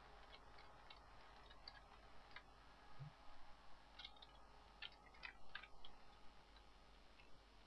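Faint computer keyboard keystrokes as text is typed and deleted, in two runs of quick clicks: one in the first two seconds and a denser one about four seconds in.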